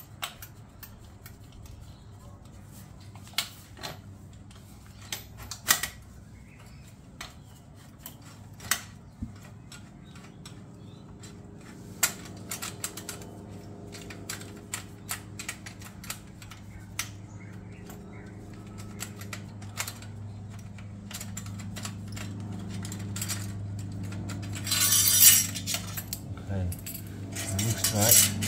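Irregular metallic clicks and clinks of hand tools against motorcycle exhaust hardware as a bolt on the exhaust is loosely done up, with a brief louder rustle near the end.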